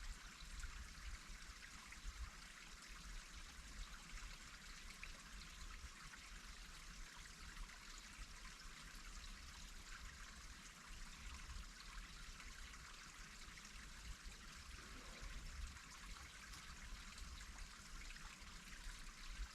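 Faint, steady rushing noise with an uneven low rumble underneath, and no distinct events.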